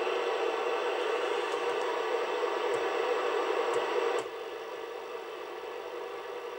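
Open-squelch receiver hiss from a Midland 4001 FM CB radio's speaker, a steady rushing noise with no signal on the channel, which drops in level about four seconds in. A few faint clicks come as the channel selector is turned.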